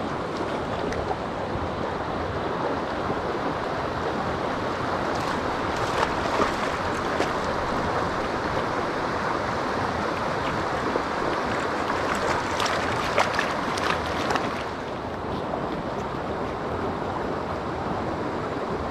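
Rushing mountain creek: a steady noise of running water, with scattered light clicks through the middle and a slight drop in level about three quarters of the way through.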